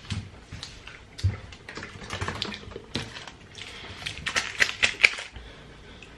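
Irregular light clicks and crackles of takeaway food and its paper and cardboard packaging being handled, busiest from about two seconds in to about five seconds in.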